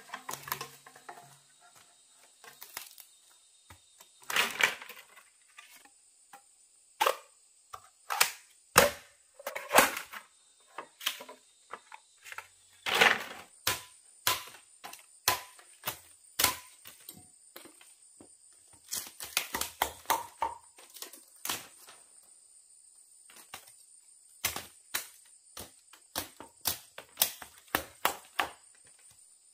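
Chopping on wood: dozens of sharp, irregular knocks and cracks, some in quick runs and some single, with short pauses between. A faint, steady, high insect whine runs underneath.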